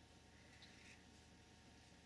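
Near silence: room tone, with one faint soft rustle a little over half a second in.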